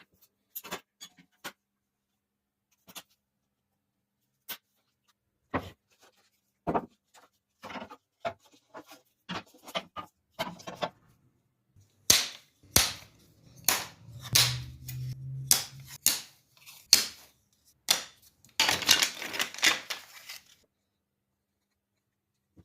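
Pieces of wood knocked one at a time, each a short sharp knock, some ringing briefly. The knocks come at irregular spacing, with a brief low buzz about halfway and a quick run of knocks near the end.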